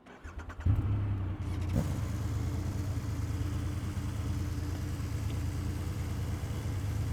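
2025 Triumph Rocket 3 R Storm's 2.5-litre three-cylinder engine cranked by the starter and catching under a second in, with a brief rise a second later, then settling into a steady idle.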